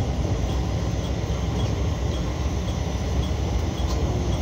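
KiHa52 diesel railcar's engine idling while the railcar stands at the platform, heard from inside the driver's cab, with a faint regular tick about twice a second.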